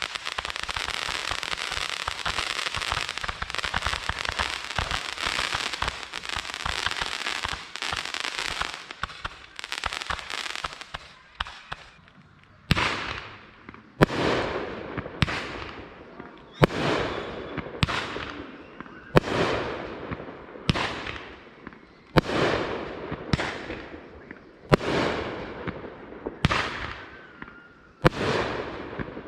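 Consumer fireworks: a dense, continuous crackling for about the first twelve seconds, then a multi-shot cake firing a regular string of about a dozen sharp bangs, one every second and a bit, each with a fading tail.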